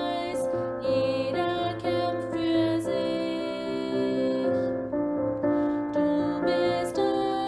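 A slow worship song sung to piano accompaniment, with sustained notes changing about once a second.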